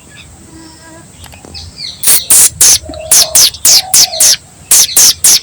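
A bird giving a rapid series of about a dozen loud, harsh, scratchy calls, starting about two seconds in, with a faint lower whistle beneath them.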